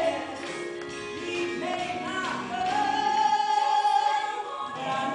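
A woman singing solo into a microphone over musical accompaniment, amplified in a large church sanctuary. She holds one long note through the second half.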